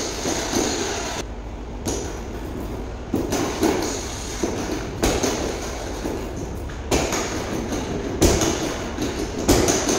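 Thuds of kicks and punches landing on a freestanding punching bag, with footsteps on a tiled floor, over a steady rushing noise.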